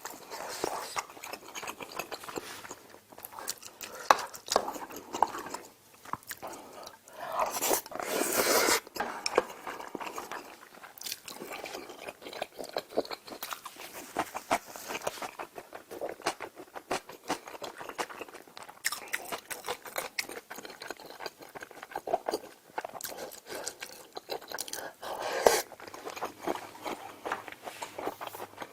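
Close-miked eating: a person chewing and biting, with frequent small mouth clicks and smacks. There is a louder, longer noisy stretch about eight seconds in and a sharp click near the end.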